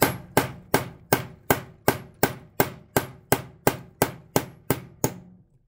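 A hammer tapping a steel punch about three times a second, about fifteen sharp metallic strikes, driving the old mainwheel bushing out of a brass clock plate set on a steel staking anvil. The strikes stop about five seconds in, as the bushing comes free.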